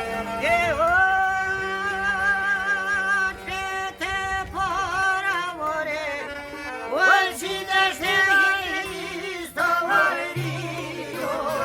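Albanian folk song: a solo voice holding long, ornamented notes with a wavering vibrato over a steady instrumental drone, most likely accordion.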